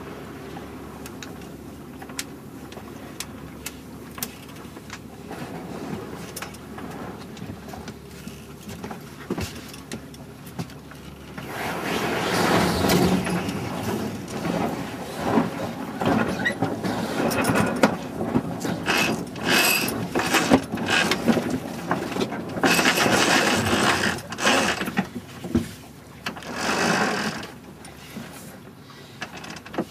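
Jib sheets being worked during a tack on a sailboat, one sheet eased and the other hauled in. Rope handling and rapid clicking, like a winch ratchet, come in loud about a third of the way in and go on in uneven spells. Before that there is only steady wind and water noise with faint ticks.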